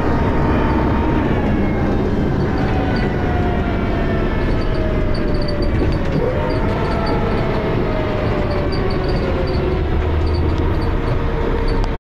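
Dennis Arrow double-decker bus's engine and ZF automatic gearbox running under way: steady loud mechanical noise with a whine that falls slowly in pitch over several seconds, and a second tone starting about halfway through. The sound cuts out abruptly near the end.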